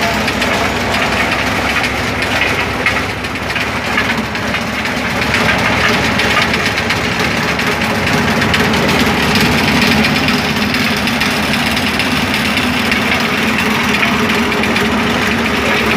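Engine-driven corn sheller machine running steadily.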